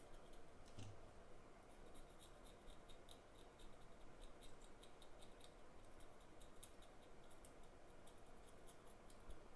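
Faint, irregular little scratches and ticks of a metal tool scraping glue residue off a phone logic board.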